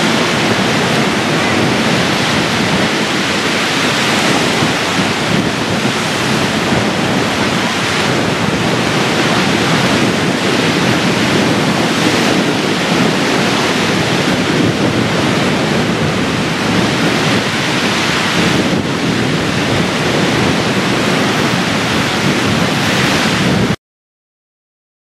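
Strong wind and choppy waves making a loud, steady rush of noise that cuts off abruptly near the end.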